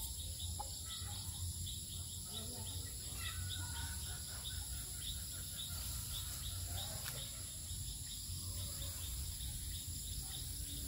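Crickets and other field insects chirping in a steady, rapid, even pulse, with a high insect hum above them. Faint bird calls come in now and then over a low steady rumble.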